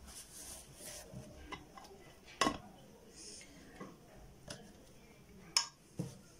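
Dishes and utensils handled on a table: a few light knocks and clinks, with two sharper clinks about two and a half and five and a half seconds in.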